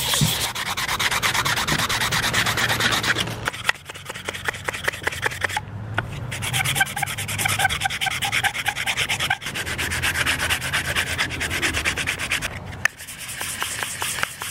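Hand sanding of a pine push stick with sandpaper wrapped around a block: quick back-and-forth strokes in several runs, with a few brief pauses between them.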